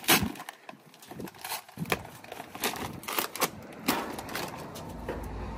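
A paper bag of barbecue charcoal being torn open and handled: irregular sharp crackling and crinkling of the paper, loudest just at the start.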